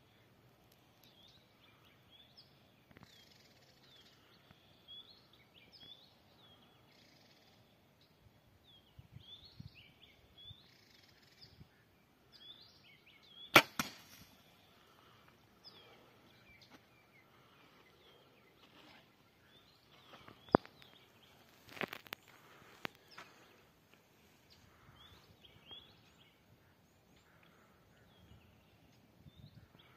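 Hoyt Rampage XT compound bow shot: one sharp crack of the string releasing the arrow about halfway through, followed a moment later by a smaller knock. A few more sharp knocks come some seconds later.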